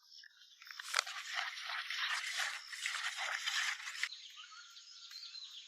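Crinkling and rustling of a plastic bait packet being handled and opened, dense from about a second in and fading after about four seconds.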